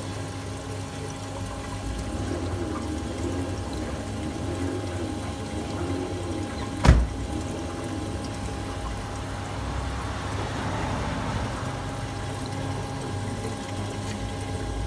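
Liquid running or being pumped over a steady machine hum, with one sharp knock about seven seconds in.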